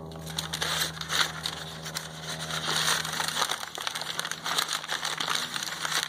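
A sheet of brown paper crinkling and rustling as it is handled, folded and wrapped around a post, with many small crackles.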